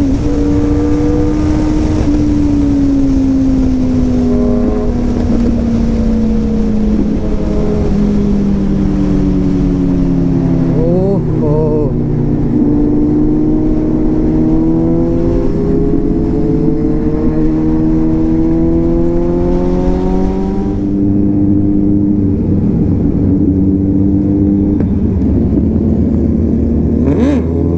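Motorcycle engine heard from the rider's seat, its pitch falling steadily as the bike slows from high speed. It rises again for a few seconds about halfway through, then runs steadier at lower speed. Heavy wind rush goes with the high speed and falls away about two-thirds of the way in as the bike slows.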